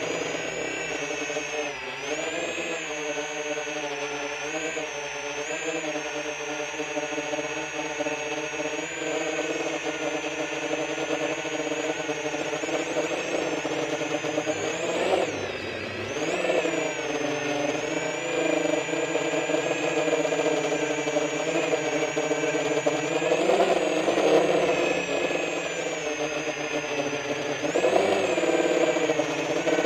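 Brushless motors and 10-inch propellers of an FPV quadcopter in flight, a continuous whine whose pitch rises and falls with the throttle. It dips briefly around the middle and swells louder twice in the second half.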